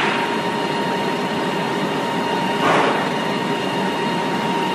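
Aluminium foil printing press running at speed: a steady mechanical rush with a constant high whine, and a brief louder swell of noise about three seconds in.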